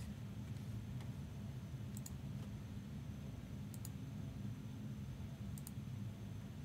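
A steady low hum with faint, short double clicks, three times about two seconds apart.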